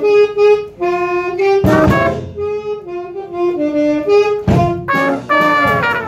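Trombone with a valve attachment playing a jazz solo: phrases of short, detached notes moving up and down, with brief gaps between phrases.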